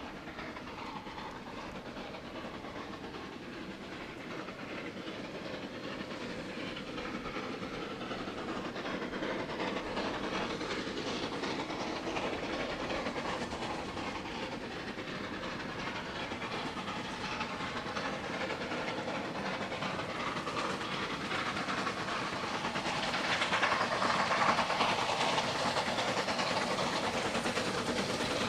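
Two C2-class narrow-gauge steam locomotives drawing near: steam hiss and wheels clattering on the rails, growing steadily louder as they approach and loudest towards the end.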